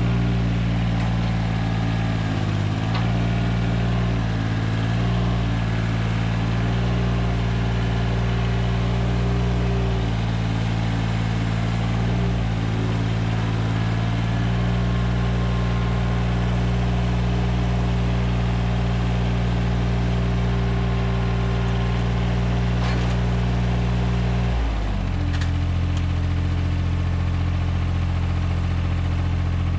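John Deere 755 compact tractor's three-cylinder diesel engine running steadily at raised throttle while its front loader handles a heavy log, the note dipping briefly a few times under load. About 25 seconds in the engine drops to a lower idle.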